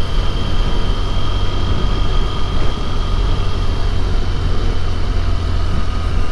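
BMW F800GT motorcycle riding at low speed, its parallel-twin engine running steadily under a haze of wind and road noise.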